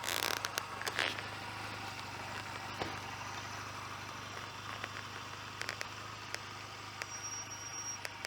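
Motorcycle engine running with a steady low hum, heard muffled through a lavalier mic in a jacket pocket. Rustling and clicks of the jacket fabric against the mic come in the first second, with a few smaller clicks later.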